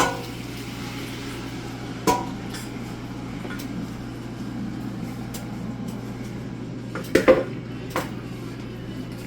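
Metal cookware and utensils clinking against a pan a few times: a ringing clink at the start, another about two seconds in, a quick cluster about seven seconds in and one more near the end, over a steady low hum.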